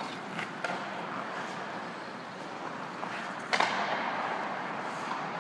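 Ice skate blades scraping and gliding over rink ice, with a few sharp hockey-stick taps on the puck near the start. About three and a half seconds in there is a sudden louder scrape, like a hard carve or stop on the blades.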